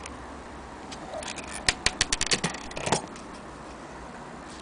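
A quick flurry of metallic clicks and rattles, about one to three seconds in, as the brass movement of a Hermle wall clock is handled.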